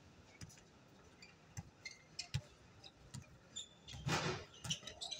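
A basketball bouncing on a hard outdoor court, with short high sneaker squeaks from the players, and a brief louder noise about four seconds in.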